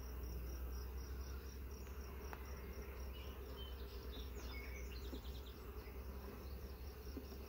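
Honeybees buzzing around an open nuc hive during an inspection: a low, steady hum. Over it runs a high, thin insect chirp that pulses about four to five times a second, with a few brief higher chirps around the middle.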